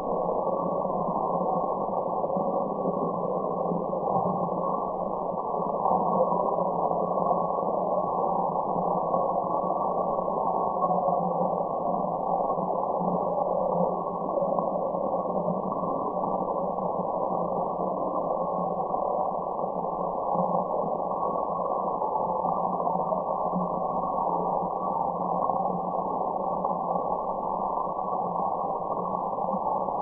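Steady white noise with the high end cut off, an even, muffled hiss, with a faint low hum running under it.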